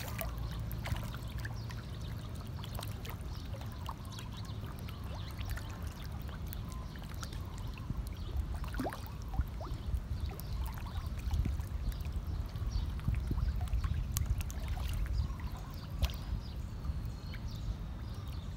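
Water splashing and slapping as a dense crowd of fish thrash at the surface to feed, with many small irregular splashes and pops, over a steady low rumble.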